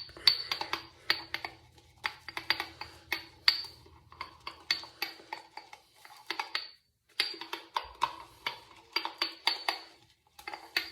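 Shaving brush whipping shaving soap into lather in a coffee mug, with quick clinking, swishing strokes against the mug's sides. The strokes come in runs, with a short pause a little past halfway and another near the end.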